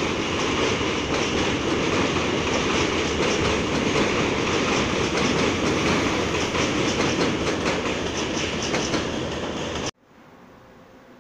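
New York City Subway train running along an elevated steel track, a loud steady rumble with its wheels clattering over the rails. About ten seconds in the sound cuts off abruptly, leaving only a faint hiss.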